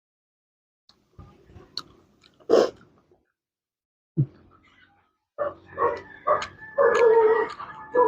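Chewing and mouth clicks from someone eating, then from about halfway in a dog barking in a run of short, repeated barks.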